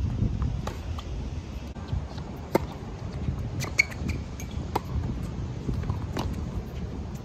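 Tennis rally on a hard court: racquet strings hitting the ball and the ball bouncing, about five sharp pops a second or so apart, over a low steady rumble.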